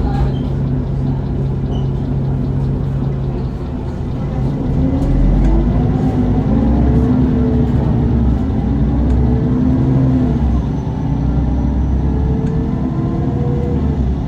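Mercedes-Benz Citaro CNG city bus engine running steadily, then about four seconds in it pulls away: the engine note climbs in pitch, dips as the ZF Ecomat automatic gearbox shifts up, and climbs again near the end.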